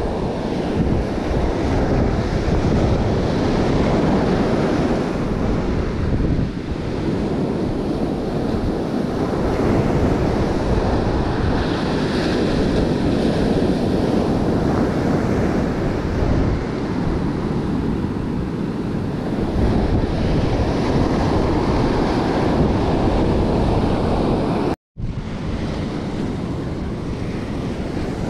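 Ocean surf breaking and washing up a sandy beach, a steady rushing wash, with wind buffeting the microphone. The sound cuts out for a moment near the end.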